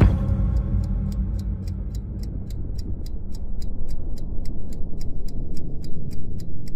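Fast, even clock-like ticking, about five ticks a second, over a low rumbling drone: a trailer sound effect.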